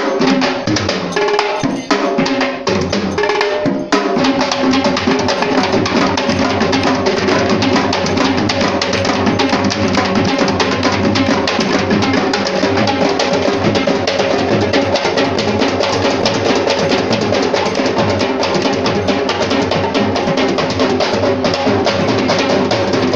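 An ensemble of traditional Sri Lankan drums playing fast, dense rhythms together. There are brief breaks about two and four seconds in, then unbroken drumming.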